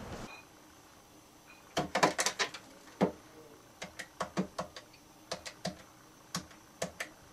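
Buttons on a black corded desk telephone's keypad being pressed one after another: a dozen or so sharp plastic clicks in uneven groups, starting about two seconds in.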